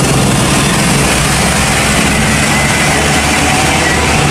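Heavy truck engine idling: a steady low engine note under a loud, even hiss.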